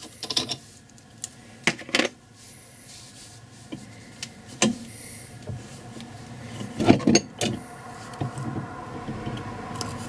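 Light, irregular metal taps and clinks: a hammer tapping a new wheel stud home into an MGA rear hub. The loudest pair of knocks comes about seven seconds in.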